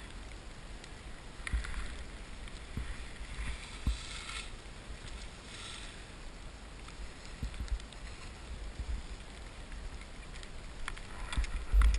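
Skis hissing and scraping through ungroomed snow in surges as the skier turns, over wind buffeting the microphone of a camera carried on the run. The scraping grows louder and sharper near the end.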